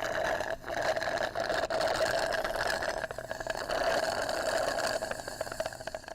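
A steady mechanical buzzing, like a small motor running, with a rapid rattle running through it.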